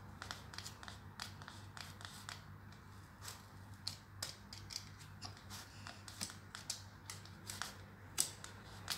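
Box-cutter knife blade slicing through corrugated cardboard in short strokes, a string of irregular crackling clicks and scrapes.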